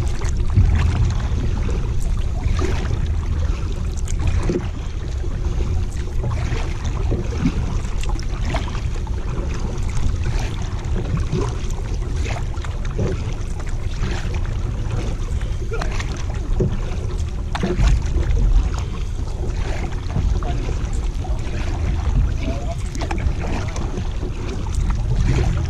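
Kayak paddling on a river: double-bladed paddle strokes splashing and dripping, with scattered small knocks and water lapping at the plastic hull. Steady wind rumble on the microphone runs underneath.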